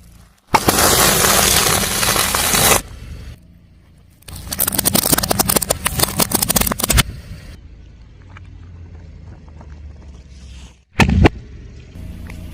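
A car tyre rolling over and crushing crunchy objects, giving two long stretches of dense crackling and crunching and one short sharp crack near the end, with the car's low engine running in between.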